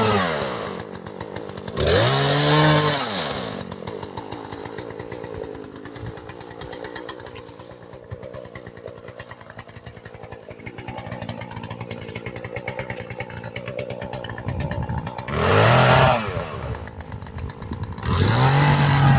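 Gasoline chainsaw alternating between throttle and idle. It revs up about two seconds in and again near sixteen seconds, ticks over more quietly in between, and runs at steady high throttle near the end.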